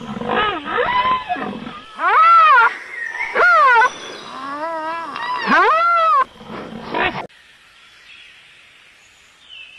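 A run of loud, roar-like animal calls, each rising and then falling in pitch, the three strongest about a second and a half apart. They stop suddenly about seven seconds in, leaving a faint hiss.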